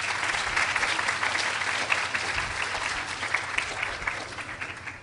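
Audience applauding: many hands clapping together in steady applause that dies away near the end.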